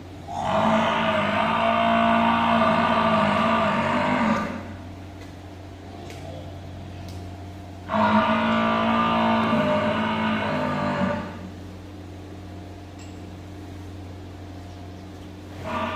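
Water buffalo mooing: two long, loud calls, each lasting three to four seconds, the second starting about eight seconds in.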